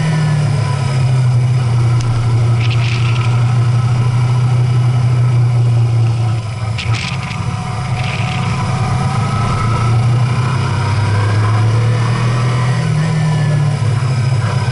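A vehicle's engine running steadily while driving, its low drone shifting in pitch with the throttle: it drops at the start, sags about six seconds in and climbs again near the end. A few brief hisses sound on top.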